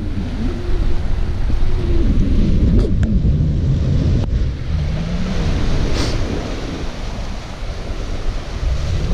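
Wind buffeting the microphone over waves washing against the breakwater's boulders. A low hum rises and falls in pitch in places. A few sharp clicks come about three, four and six seconds in.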